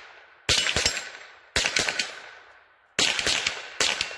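Four shots from a Rossi RS22 semi-automatic .22 LR rifle firing 40-grain Remington Thunderbolt round-nose ammunition, about a second apart, each trailing off in an echo. The action cycles every round without a malfunction.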